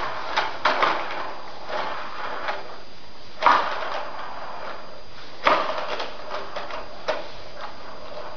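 Plastic baby walker clattering as the baby in it plays: irregular knocks and rattles of the tray and its toys. The two loudest knocks come about three and a half and five and a half seconds in.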